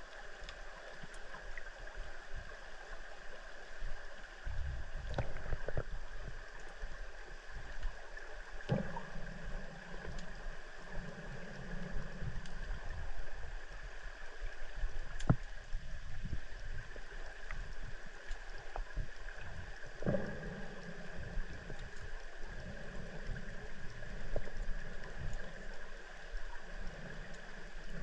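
FIFISH underwater drone's electric thrusters running underwater, a steady whine over a wash of water noise. Low rumbling surges come and go every second or two, with a few sharp clicks.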